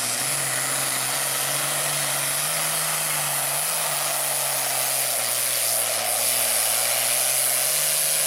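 Diesel engine of a red International Harvester pulling tractor running at full throttle under load as it drags the sled, black smoke pouring from the stack: a loud, steady heavy drone with a hiss high above it.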